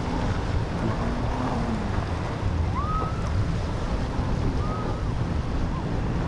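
Wind buffeting the microphone over the steady rush of surf and passing boat engines, with a couple of brief higher-pitched calls about three and five seconds in.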